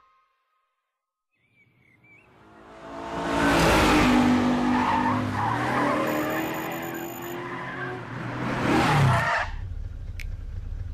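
Animated sound effect of car engines revving and tyres skidding as cars speed past, swelling up out of silence about two seconds in, with a second surge near nine seconds. It then settles into a low steady engine rumble with a few clicks.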